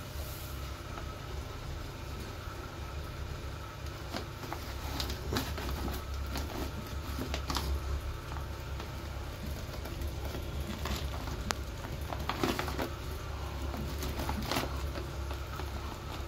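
Plastic litter scoop digging and scraping through clumping cat litter granules, giving scattered gritty scrapes and clicks, over a steady low hum.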